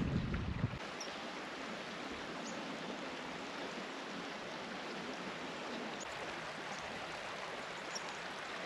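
Steady rush of a shallow mountain river flowing over rocks, with a brief low rumble in the first second.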